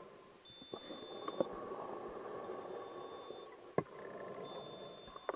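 A high steady beep, each about a second long, repeating every two seconds over a steady hum, with a few sharp clicks scattered through it.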